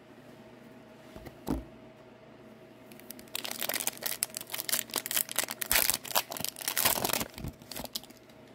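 A hockey card pack's wrapper being torn open and crinkled by hand, dense crackling from about three seconds in until near the end. A single soft knock comes about a second and a half in.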